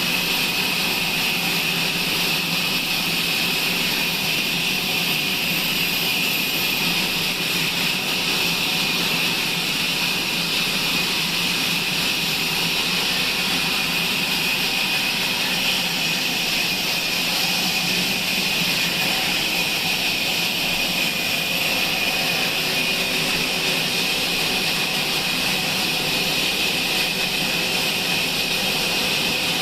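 Sawmill saw running steadily: a constant high-pitched whine and hiss with a low hum beneath, unchanging throughout.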